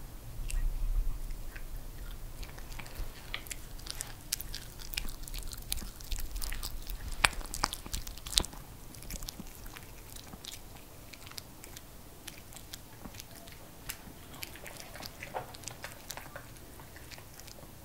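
Pomeranian chewing and smacking its mouth on soft rice cakes in cream sauce: a run of quick wet clicks, densest in the first half and thinning toward the end.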